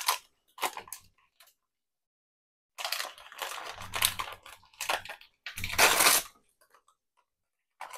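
Crinkling and tearing of a Jiffy corn muffin mix's inner bag as it is pulled from its box and torn open by hand, in several short noisy bursts, the loudest about six seconds in.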